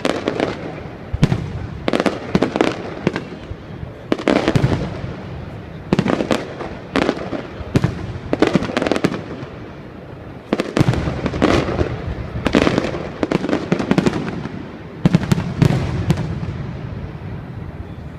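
Aerial fireworks going off: a rapid run of sharp bangs, often several in quick succession, each followed by rolling echo and crackle.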